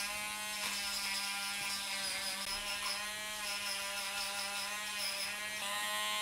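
Corded electric dog clippers running steadily as they are worked over a puppy's paw, the pitch wavering slightly and rising a little near the end.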